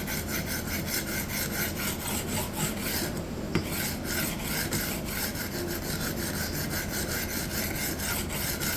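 Knife edge of hard Japanese steel scraped back and forth across a diamond sharpening plate in quick, even strokes, grinding the edge down at the tip to remove chips before a new bevel is cut. The strokes break off briefly a little past three seconds in, with a light click, then resume.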